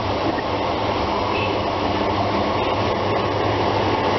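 Class 150 Sprinter diesel multiple unit pulling away and passing close by. Its underfloor Cummins diesel engines run under power with a steady low drone.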